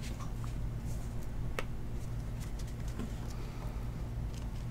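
Trading cards being handled: faint ticks and flicks as cards are set down and thumbed through a stack, over a steady low hum.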